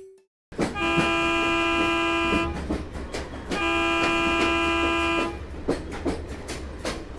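Cartoon locomotive sound effect: a low engine rumble with two long, steady toots of its horn, each lasting under two seconds, about a second apart. It starts about half a second in.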